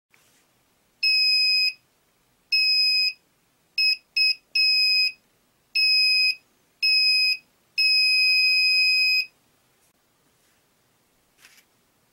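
Small electronic buzzer on a homemade breadboard circuit beeping a steady high tone in eight bursts of uneven length, from short blips to one about a second and a half long.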